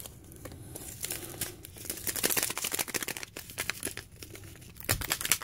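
Crinkling and crackling of MRE packaging being handled: the plastic hot-beverage bag and a small tan instant-coffee packet, which is being torn open. There is a louder burst of crackles about five seconds in.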